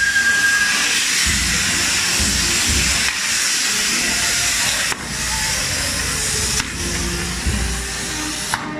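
Fireworks castle (castillo) burning: its pyrotechnic wheels and fountains give a loud, steady, dense hiss. A high whistle fades out within the first second, and the hiss weakens near the end as the castle burns down.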